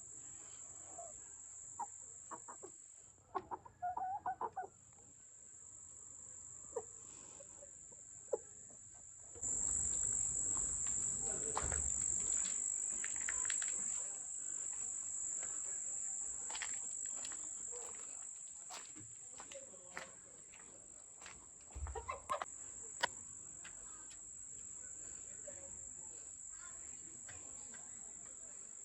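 Chickens clucking now and then over a steady, high-pitched trill of crickets or other insects.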